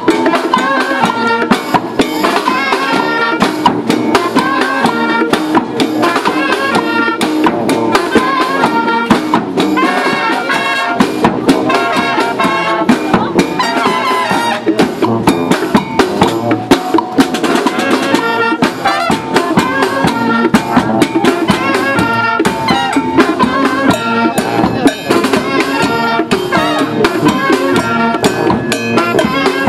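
Street brass band playing live: sousaphones, trumpets, trombones and saxophones over a bass drum and snare drum keeping a steady beat.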